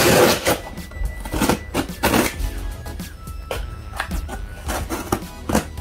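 Cardboard box being opened and unpacked by hand: a loud rustle at the start, then repeated clicks, taps and rustling of packaging and paper, over background music.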